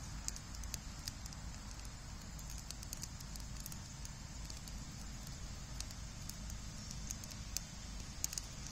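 Campfire of dry sticks and branches in a steel fire ring, crackling with irregular sharp pops, a couple of louder ones near the end, over a low steady rumble.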